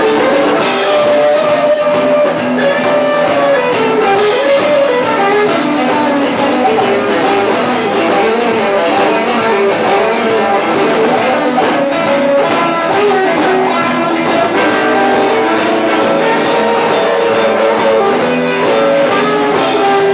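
Live rock band playing: several electric guitars over a drum kit, with the guitar lines moving throughout.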